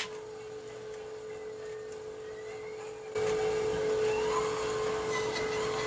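Philco M-7 record player mechanism running with a 10-inch shellac record turning on the turntable, giving a steady motor hum. The sound jumps suddenly louder about three seconds in.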